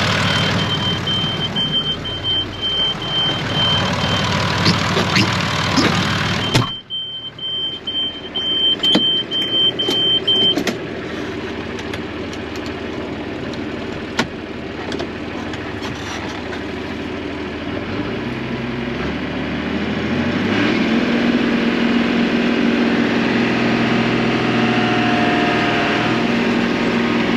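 John Deere tractor engine running steadily. About seven seconds in, the sound abruptly turns duller and more muffled. From about eighteen seconds in, the engine pitch rises and then holds higher as the tractor pulls away.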